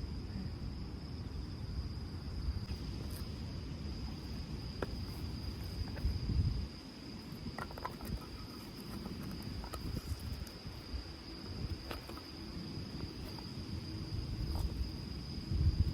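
Crickets singing: one unbroken high-pitched trill, over low gusting wind rumble on the microphone, with a few faint clicks.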